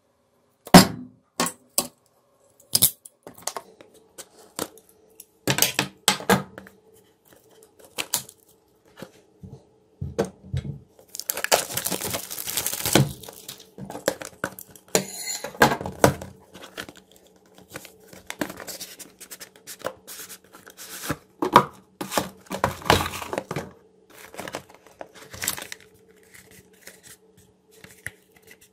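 Handling noise from a cardboard smartphone box on a desk: scattered taps, knocks and scrapes, with a couple of seconds of tearing and crinkling about a third of the way through. A faint steady hum runs underneath.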